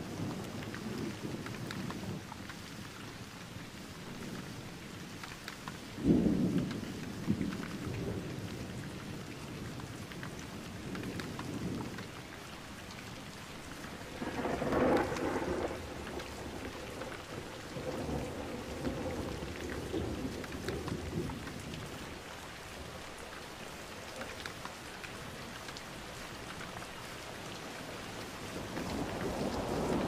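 Steady rain with thunder rumbling several times; the loudest rumble starts suddenly about six seconds in, and more thunder builds near the end.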